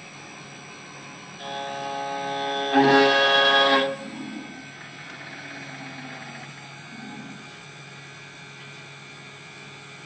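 Background music: sustained instrumental notes that swell about a second and a half in, are loudest for about a second, then fade back to quieter held tones.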